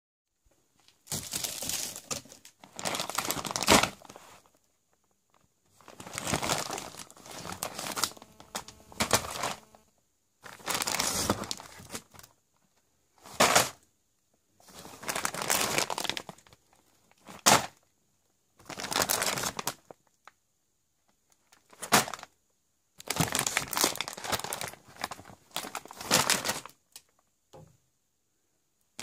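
Clear plastic bags crinkling in repeated bursts as packs are handled and lifted out of a cardboard box, with a few short sharp knocks as they are set down.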